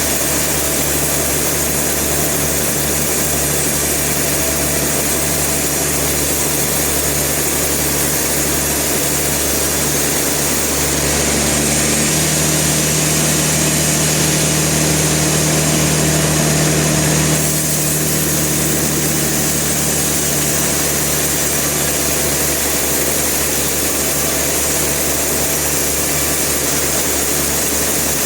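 Sawmill machinery running steadily with a constant hum. It grows louder and heavier about twelve seconds in, holds for about six seconds, then drops back.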